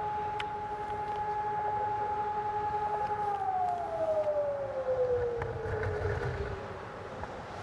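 Sonnenburg SES 1200 electronic siren sounding a steady tone. About three seconds in it glides down in pitch and fades away, winding down at the end of a test-alarm blast.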